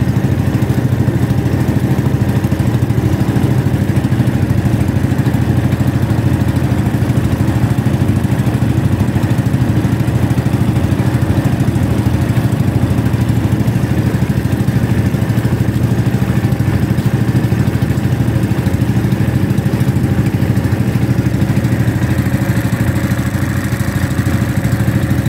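Small engine of a motorized outrigger fishing boat running steadily under way, a constant even drone with no change in speed.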